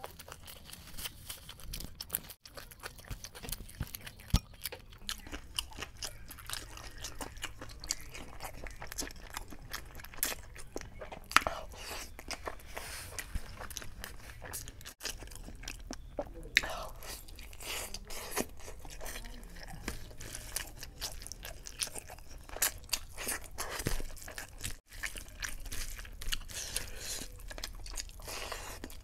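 A man chewing and biting mouthfuls of chicken biryani eaten by hand, with many short crunches and clicks.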